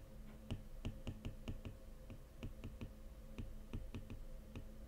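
Faint, irregular taps and clicks of a stylus on a drawing tablet, about four to five a second, as a word is handwritten, over a faint steady hum.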